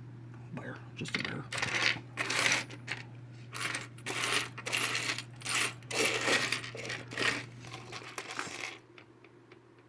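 Small figurines and trinkets clinking and clattering against each other as a pile of them is rummaged through and sorted by hand, a dense run of sharp clicks that stops near the end.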